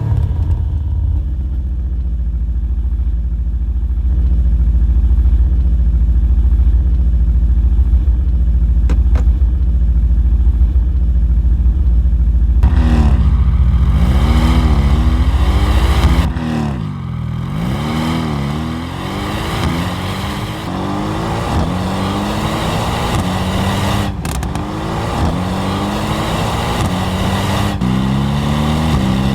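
Mercedes-AMG GT R's twin-turbo V8 running steadily at low revs with a deep rumble for about the first twelve seconds, then accelerating hard, its pitch rising and dropping back again and again as it shifts up through the gears.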